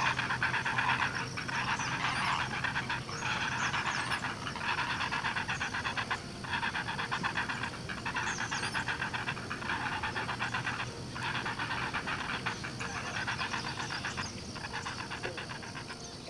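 Young great blue herons in the nest giving begging calls: rapid pulsed chatter in repeated bouts of a second or two, with short breaks between.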